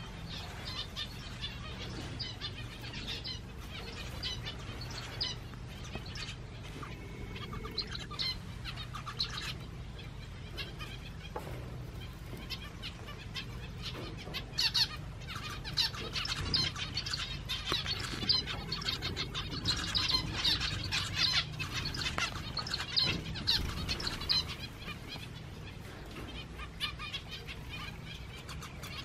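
A flock of small aviary finches, zebra finches among them, chirping and calling constantly in short, high notes. The calling grows busier and louder about halfway through, then eases off near the end.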